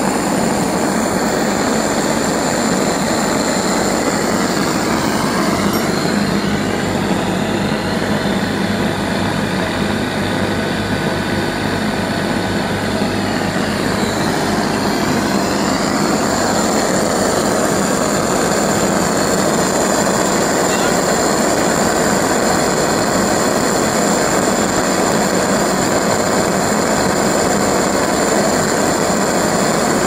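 Homemade LPG-and-compressed-air pulse detonation engine with a water jacket and steam jets, running steadily in resonance: a loud, continuous rushing noise with a high tone held over it.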